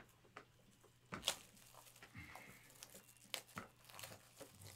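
Trading cards and their wrappers being handled on a desk: faint crinkling and rustling with a few sharp clicks, the loudest about a second in.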